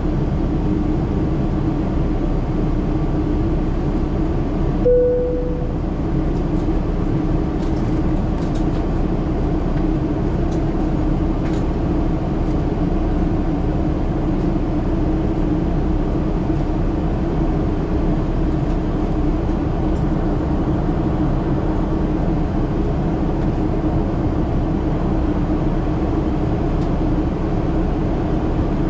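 Boeing 777-300ER cabin noise in the climb: a steady drone of the GE90 engines and airflow, with a constant low hum. About five seconds in, a single cabin chime rings and fades.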